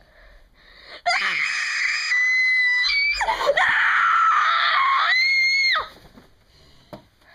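A loud, high-pitched scream held for about five seconds, wavering in pitch with a sharp dip and rise a little past the middle, then cutting off suddenly near the end.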